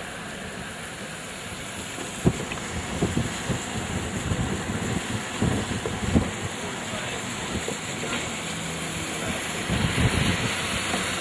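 Steady wind and road noise from a car driving through the aftermath of a hurricane, with irregular gusts buffeting the microphone.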